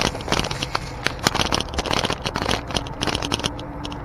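Ride noise from a bike-mounted camera on a mountain bike rolling over asphalt: knobby tyres humming on the road, irregular rattling clicks from the bike and mount, and wind rumbling on the microphone.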